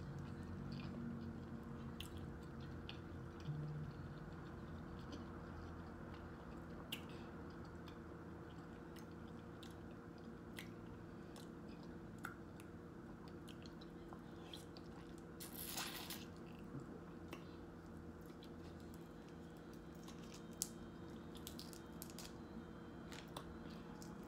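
Close-miked mouth sounds of a person chewing shrimp, with scattered small wet clicks and smacks and one louder crackle about 16 seconds in, over a steady low hum.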